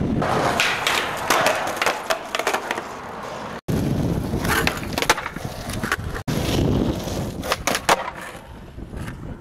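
Skateboard wheels rolling on concrete, with sharp clacks of the board popping, hitting a ledge and landing. The rolling sound breaks off abruptly twice where the clips are cut.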